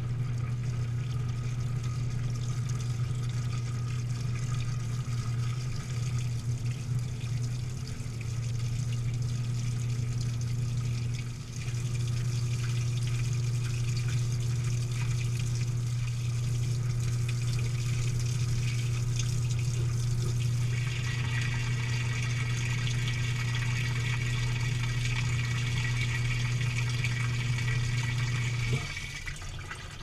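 Samsung top-load washer heard from inside its drum: a steady low motor hum as the drum spins the dry load. About two-thirds of the way through, a hiss of water filling the tub joins in, and the hum stops shortly before the end.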